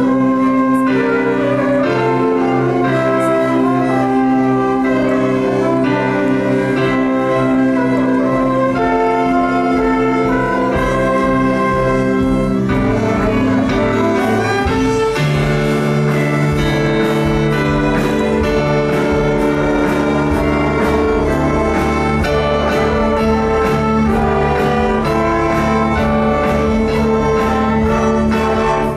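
Church orchestra of violins, saxophones and brass with electric guitar playing an instrumental passage. About halfway through it grows fuller over a held low note, and a steady beat comes in.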